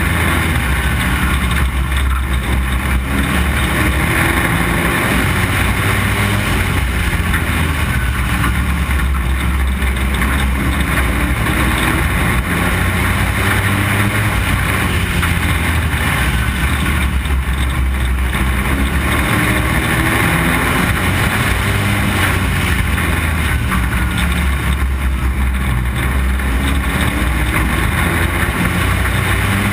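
Street stock race car's engine running hard at racing speed, heard from a camera mounted on the car, its note climbing on the straights and easing briefly about every eight seconds through the turns.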